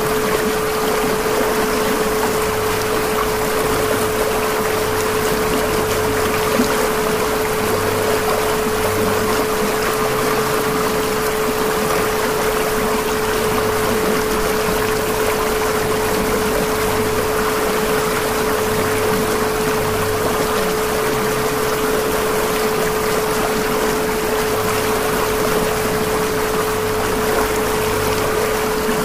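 Subliminal audio track: a steady 432 Hz pure tone held over a constant rushing, water-like noise. Underneath, a faint low hum switches on and off irregularly.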